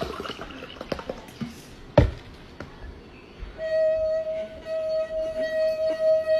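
A few light clicks and a sharp knock, then a single steady pitched tone held for about four seconds, wavering in loudness.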